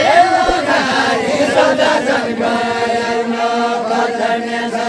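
Men's voices chanting a deuda folk song in unison without instruments, the line settling into a long held note about halfway through.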